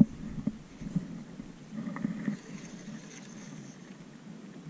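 Handling of a spinning rod and reel: a sharp click as it begins, then a few lighter clicks over a faint low rumble.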